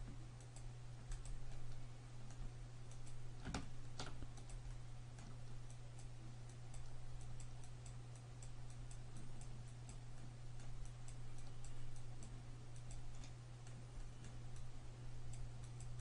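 Computer mouse buttons clicking faintly and irregularly during mouse painting, over a steady low electrical hum; two louder clicks come about three and a half and four seconds in.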